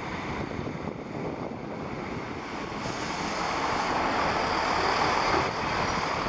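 Diesel multiple unit passenger train running past, a steady rush of wheel and rail noise that grows louder after about three seconds as the train passes close by, with wind on the microphone.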